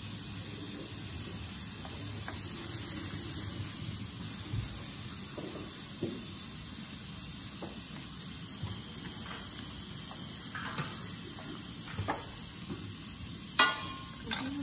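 Chicken pieces sizzling in an aluminium wok over a gas flame, a steady hiss, with scattered light knocks of wooden chopsticks stirring against the wok. A sharper ringing clink comes near the end.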